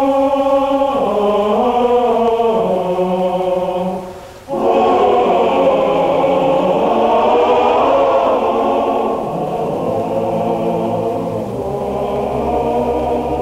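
Mixed choir singing the film's closing music in sustained chords, a cappella. The sound breaks off for a moment about four seconds in, then comes back fuller.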